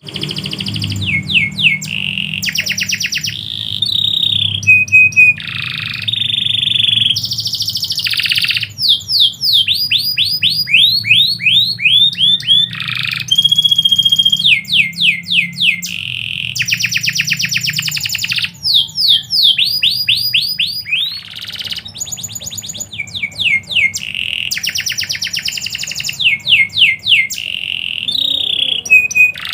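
Domestic canary singing a long, continuous song of fast trills and rapid runs of repeated falling notes, broken by a few held whistled tones.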